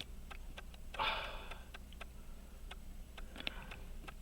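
Small, irregular metallic clicks and taps as a pocket watch movement is handled and seated in a movement holder, with a short sniff about a second in.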